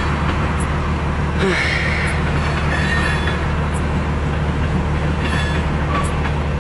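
Freight cars of a CN mixed freight train rolling very slowly past, a steady low rumble with a few short, high wheel squeals.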